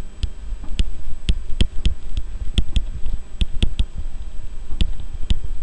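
Stylus tip tapping and clicking on a drawing tablet during handwriting: about a dozen sharp, irregular clicks over a steady low hum.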